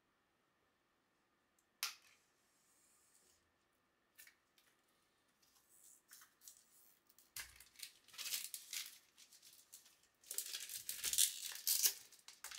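Plastic shrink-wrap being picked open and torn off a book: a sharp snap about two seconds in, a few small crackles, then crinkling and tearing that grows loudest near the end.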